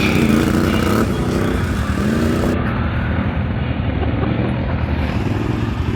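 A motor vehicle's engine running steadily, its pitch wavering up and down a little in the first few seconds.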